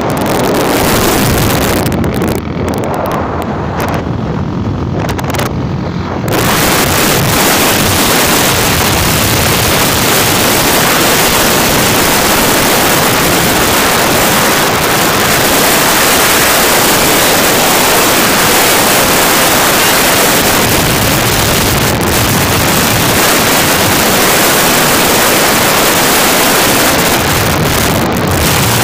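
Strong wind rushing over a phone microphone on a moving motorbike. The noise grows louder and steadier about six seconds in.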